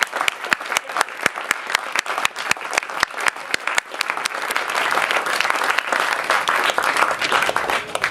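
Audience applauding. The claps are distinct and sharp at first, then thicken into denser, louder applause about halfway through.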